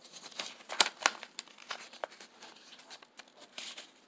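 A sheet of printer paper being folded and creased by hand: crinkling rustles with a few short, sharp crackles, the loudest about a second in.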